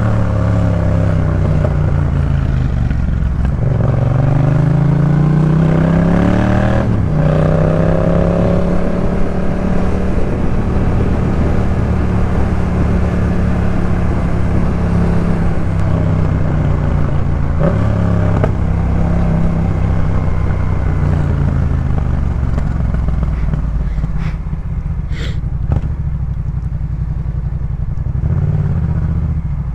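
Yamaha MT-07's 689 cc parallel-twin engine breathing through a Jeskap K4 full exhaust system, under way. It pulls up through the revs, drops sharply at a shift about seven seconds in, holds a steady speed, then eases off and slows in the second half.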